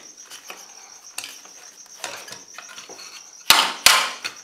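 A screwdriver scraping and prying at the plastic end panel and circuit board of a battery charger's finned aluminium case, with small clicks and rattles, then two sharp knocks close together about three and a half seconds in.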